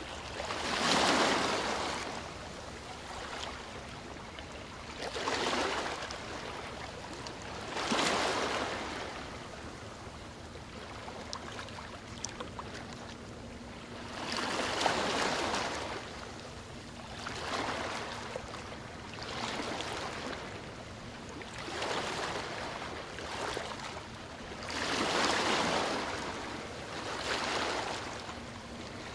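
Small river waves washing onto the bank, a swell of rushing, splashing water every two to three seconds at an uneven rhythm. A faint steady hum runs underneath.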